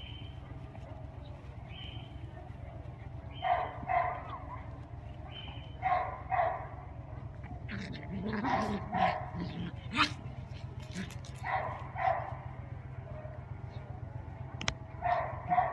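Dog play-barking in quick pairs of short barks, five pairs a few seconds apart, during rough play between dogs.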